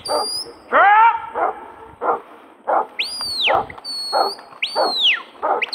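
Huntaway sheepdog barking steadily, about two barks a second, as it drives sheep up the hill. About halfway through, two long rising-then-falling whistles and short steady whistle notes, the handler's commands, sound over the barking.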